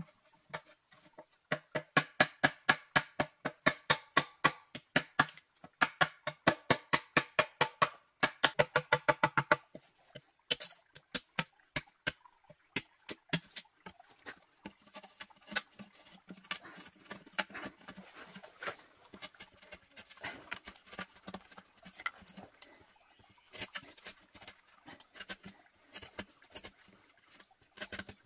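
A blade chopping into a green bamboo tube: sharp, hollow-ringing knocks at about three or four a second for the first ten seconds or so. After that come lighter, quicker and less even taps and scraping as the notch in the bamboo is cut out.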